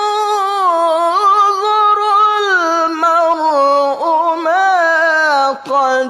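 A solo voice chanting Quran verses in a slow, melodic murottal style, with long held notes, ornamented pitch turns and no accompaniment.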